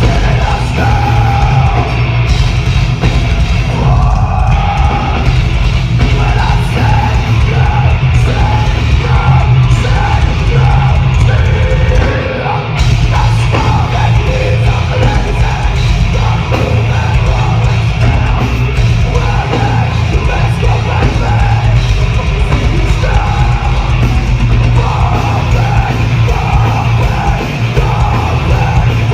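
Metalcore band playing live: heavy drums and guitars with screamed vocals. There is a brief dip in loudness a little under halfway through.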